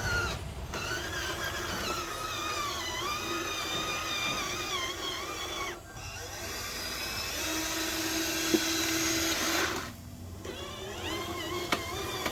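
Small electric motor of a toy vehicle whining, its pitch wavering up and down as it runs. It cuts out briefly twice, about six and ten seconds in.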